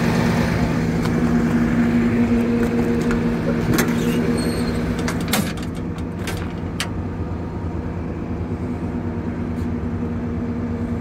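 Freightliner work truck's diesel engine idling steadily, with a few sharp metal clicks and knocks in the middle as a storage compartment door is handled.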